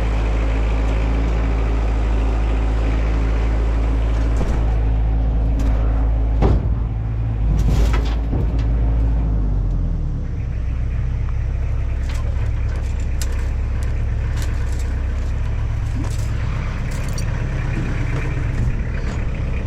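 Tractor engine running steadily, dropping to a lower speed about ten seconds in, with scattered sharp metal clanks from scrap fencing being loaded.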